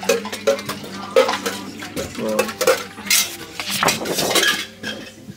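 Clattering and clinking of dishes, cups and cutlery: a quick, irregular run of knocks and rattles, busiest after the middle, over a steady low hum.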